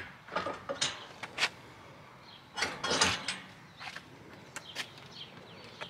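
Steel hitch-mount cargo carrier's hitch bar being worked into the vehicle's receiver tube. A run of metal clanks and knocks, with a louder scrape of steel on steel about halfway through, as the heavy basket is shifted to line up the pin holes.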